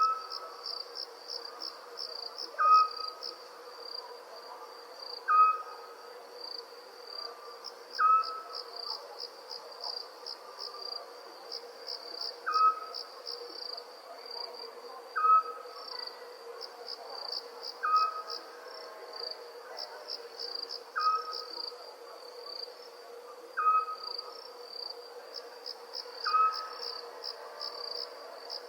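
Field crickets chirping steadily in quick pulsed trills, with a short single-note owl call repeating about every two to three seconds, about ten times in all.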